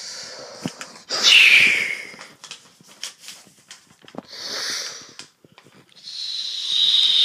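A person making breathy, hissing sound effects with the mouth in three bursts, the first and last loudest, with paper crinkling and handling clicks between them.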